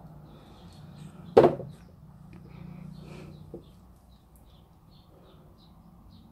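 Faint birds chirping in the background with short repeated calls, over a low steady hum. One short, sharp knock sounds about a second and a half in.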